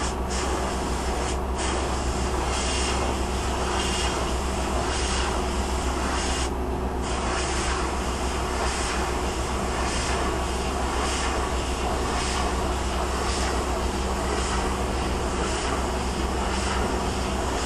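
Pneumatic paint spray gun hissing as it sprays, over the steady low hum of an air compressor running. The hiss briefly stops about one and a half seconds in and again near seven seconds, then resumes.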